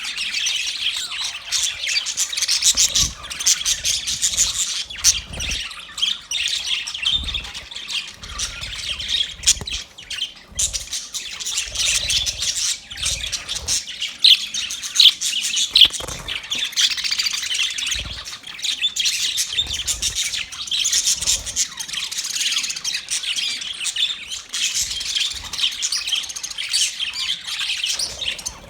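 A flock of budgerigars chirping and chattering continuously, with frequent squawks mixed in.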